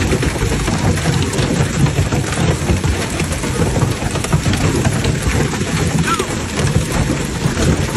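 Hail and heavy rain pelting parked cars and pavement: a dense, steady clatter of countless small impacts over a loud rushing downpour.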